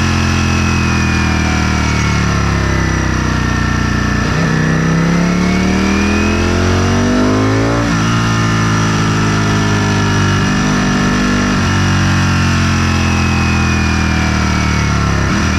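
Sport motorcycle engine running loudly, its pitch climbing for a few seconds under acceleration, then dropping suddenly about eight seconds in and holding steadier with smaller rises and falls.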